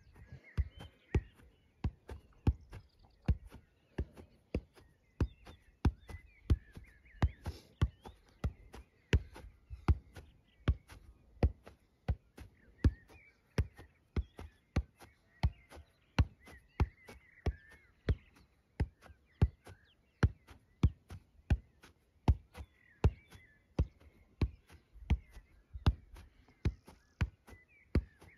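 A football being juggled with the feet: a steady run of sharp thuds of foot on ball, about two a second, the ball kept off the ground.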